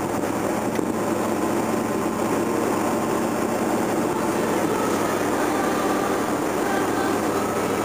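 4x4 SUV engine running steadily under load as the vehicle drives off-road and climbs a steep dirt bank.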